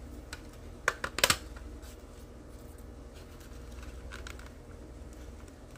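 Hard plastic model-car parts clicking and tapping as a scale-model chassis is handled and test-fitted: a quick cluster of sharp clicks about a second in, then a few fainter ticks.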